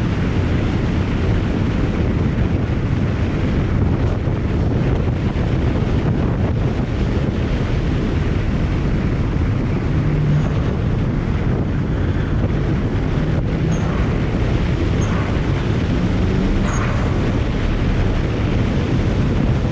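BMW 335i driving at speed: steady wind rushing over the microphone with road and engine noise underneath. A few faint short sounds come through in the second half.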